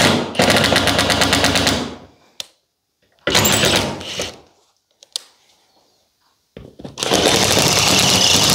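Power screwdriver driving screws up into plasterboard ceiling sheets, in three runs with short pauses between, each a fast rattling as a screw goes in.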